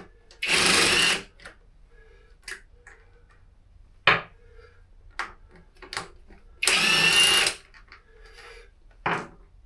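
Cordless impact wrench running in two bursts of about a second each, spinning out the BMW R1200GS's rear wheel bolts. A couple of sharp metal clicks fall between the bursts.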